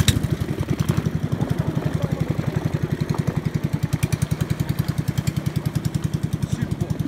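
Small engine on a narrow wooden river boat running with a rapid, even pulse, pushing the boat away under power.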